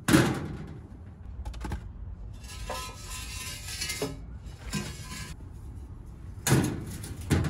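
Metal parts clanking and scraping as welded steel exhaust pieces, a turbo manifold and downpipe, are handled and set down on a sheet-metal table. There is a sharp knock at the start, clicking in between, and two more knocks near the end.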